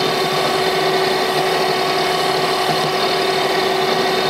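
Metal lathe running with a steady motor whine, spinning a brass flywheel blank while a cutting tool takes a very light cut across its face.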